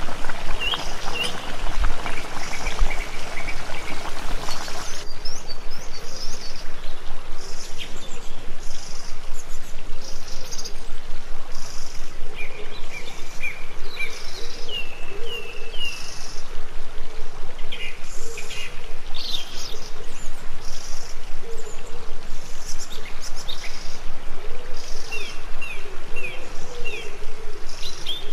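Buttermilk pouring from a plastic bottle into a pot of soup, a steady splashing stream that stops about five seconds in. Small birds chirp repeatedly throughout.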